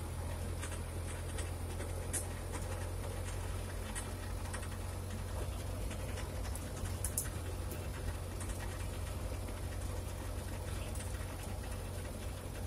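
Steady low rumble of a moving vehicle's engine and road noise, heard from on board, with scattered small clicks and rattles.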